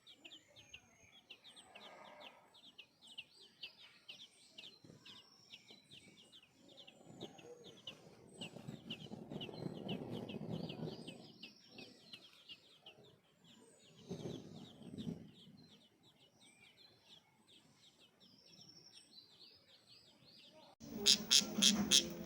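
Small birds chirping in a quick, continuous stream of short high chirps, with lower, louder calls twice along the way. Loud music with a beat comes in near the end.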